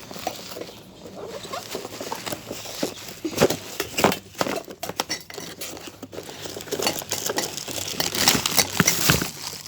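Small objects being handled: quick clicks, scratches and rustles that get busier and louder in the second half.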